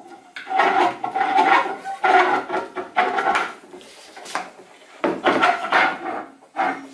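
Half-inch steel threaded rod being pushed through the drilled wooden end plugs of a hollow hexagonal blank, its threads scraping and rattling against the wood. The scraping comes in two spells with a short lull about halfway.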